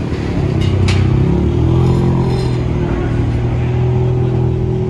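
A modified rally car's engine running. Its note dips and then rises again over the first couple of seconds before settling to a steady run, with two short clicks about a second in.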